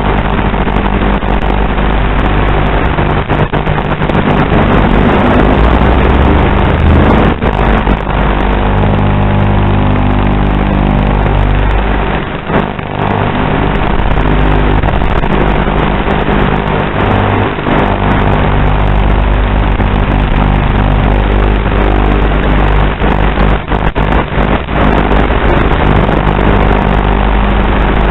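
FPV racing drone's brushless motors and propellers buzzing under changing throttle, picked up on the drone's own video-link audio. The pitch shifts as the throttle changes, and the sound dips briefly about twelve seconds in when the throttle is low.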